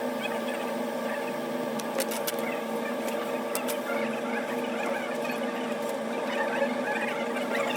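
A steady mechanical hum from a small machine, with a few faint clicks.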